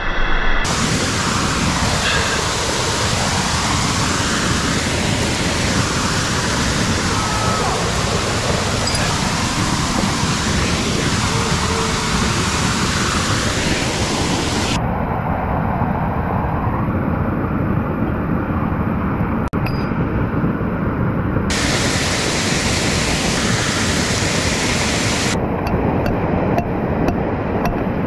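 Steady roar of a 40 m waterfall: a continuous, even rushing of falling water.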